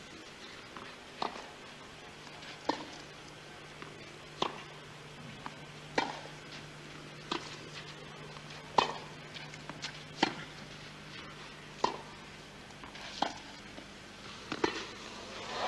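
Tennis ball struck back and forth by rackets in a long baseline rally on clay: one sharp knock about every second and a half, with fainter ticks of the ball bouncing between them. Crowd noise rises right at the end as the point finishes.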